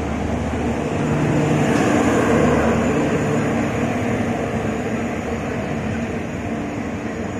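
Passenger express coaches rolling past close by as the train arrives at the platform: a steady rumble of wheels on the rails that swells about two seconds in and then slowly eases.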